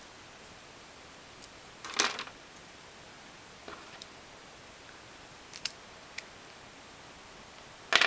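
Metal clicks and clatter from a lock pick working a Brinks padlock: a loud rattling clatter about two seconds in, a few small sharp clicks in the middle, and a loud click right at the end.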